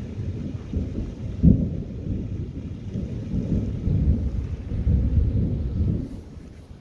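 Thunder rolling for about six seconds, with its loudest peak about a second and a half in, then dying away near the end.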